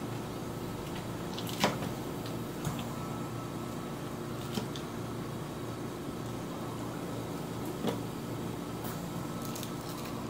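A metal fork clinks against a salad bowl four times while salad is eaten, the first clink the loudest, over a steady low hum.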